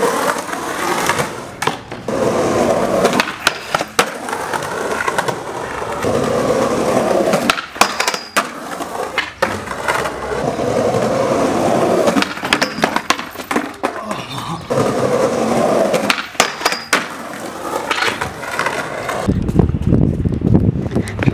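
Skateboard wheels rolling over concrete, broken several times by sharp clacks of the board popping and slapping down on the ground as a rail trick is tried again and again. A low rumble comes in near the end.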